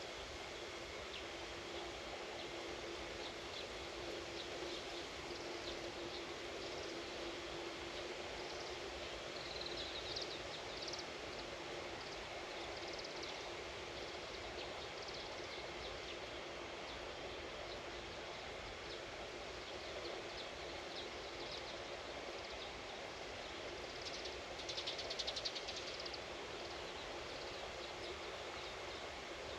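Outdoor farm ambience: small birds chirping on and off over a steady background hiss, with a brief louder burst of rapid chirping about 25 seconds in. A steady low hum runs through the first third.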